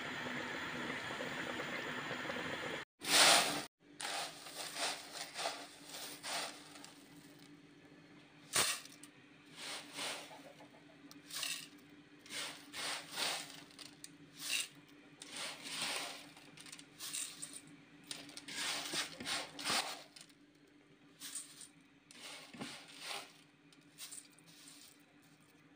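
Pot of chicken in tomato sauce cooking with a steady hiss for the first few seconds. Then, after a short loud burst about three seconds in, comes a long run of short, irregular rustles and crackles as fingers toss and rub small squares of trida pasta in a metal bowl.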